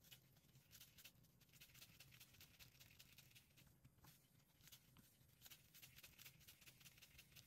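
Near silence, with faint, irregular rustling and crackling from a gloved hand kneading and rolling damp, crumbly incense mixture in a metal pot.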